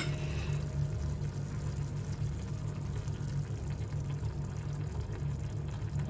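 Tomato and pepper menemen simmering and bubbling in a copper pan, with beaten egg poured in from a bowl near the end. A steady low hum runs underneath.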